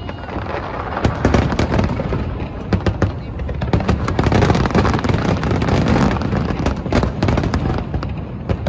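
Aerial fireworks display: a dense, overlapping run of booms and crackling reports, with many sharp cracks, loudest through the middle.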